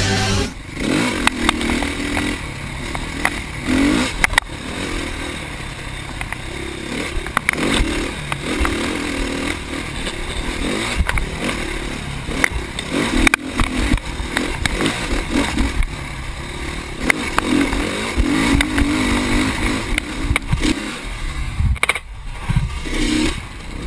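Dirt bike engine running with the throttle rising and falling while riding over rough, rocky ground. Short knocks and clatter come from the bike and stones.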